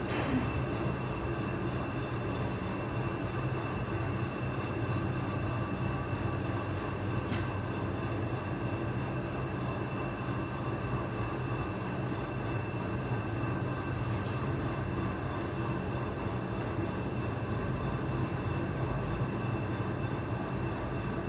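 Steady buzzing hum of an AC TIG welding arc on an aluminium motorcycle cylinder block, running unbroken.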